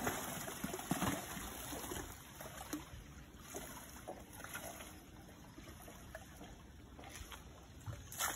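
Muddy water splashing and trickling as an Asian elephant wades and works its trunk in a shallow pool, with scattered small splashes. It is louder at the start and again near the end.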